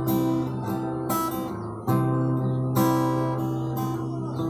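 Acoustic guitar strumming chords, one strum about every second, with a chord change just under two seconds in: the instrumental lead-in to a romantic ballad before the singing starts.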